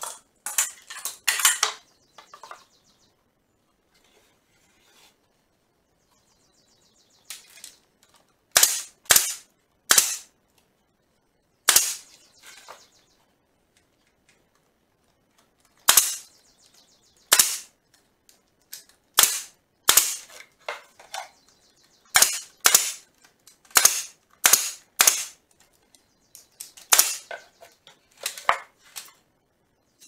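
Bostitch pneumatic nailer driving nails into wooden boards: a string of sharp shots a second or two apart, some in quick pairs, after a few knocks from handling the wood at first.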